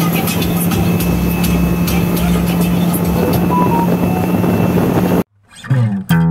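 Speedboat engine running at speed with a steady hum, under wind and water noise. About five seconds in it cuts off abruptly, and plucked acoustic guitar music starts.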